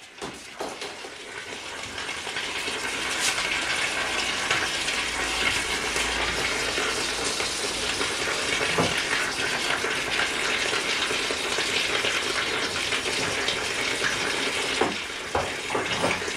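A steady rushing hiss that builds over the first few seconds and then holds, with a few faint knocks.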